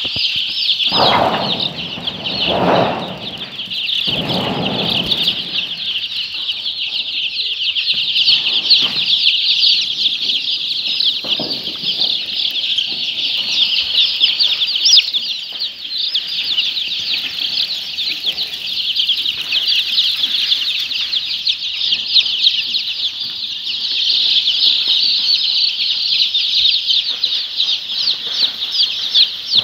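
A large flock of chickens calling all at once, a dense, continuous chatter of many overlapping high-pitched calls, with a few fuller, lower rustling or flapping sounds in the first five seconds.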